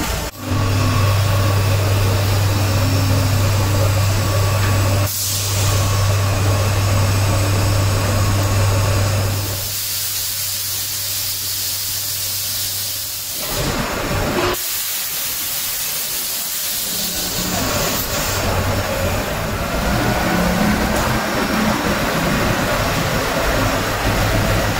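Leather factory machinery running: a steady low hum for about the first nine seconds, then a loud hiss of air or steam for several seconds, then mixed machine noise.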